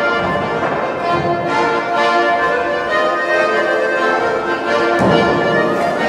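Instrumental folk-style music with a steady beat, several instruments playing together.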